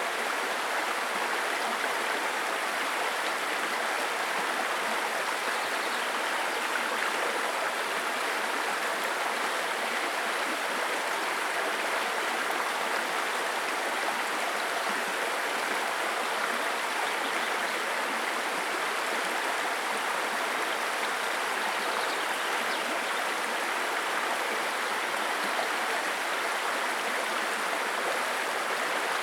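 A babbling brook: shallow stream water running and splashing over stones in a steady, even rush.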